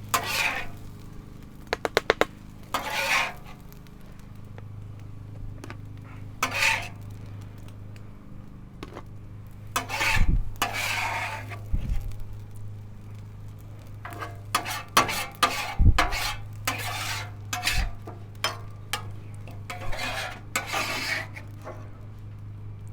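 Metal spatulas scraping, scooping and tapping on a Blackstone flat-top steel griddle as fried rice is lifted onto a plate, in irregular scrapes and sharp clicks, with food sizzling on the hot surface and a steady low hum underneath.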